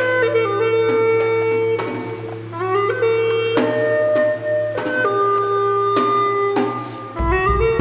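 Background music: a melody of held notes stepping from pitch to pitch over a steady low drone, punctuated by sharp percussive strikes, with a deeper low beat coming in near the end.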